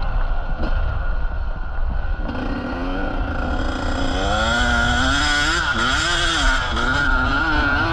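Motocross bike engine revving, its pitch rising and falling again and again from a couple of seconds in, over a steady low rumble.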